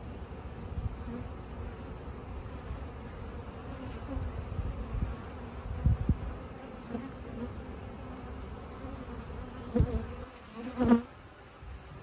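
Honeybees buzzing at a hive entrance as they fly in and out, over a low rumble. About eleven seconds in, one bee passes close to the microphone, giving the loudest buzz.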